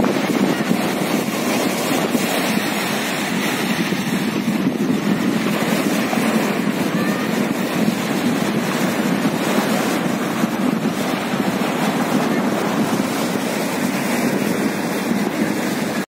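Small waves breaking and washing up on a sandy beach: a steady rush of surf with no distinct breaks.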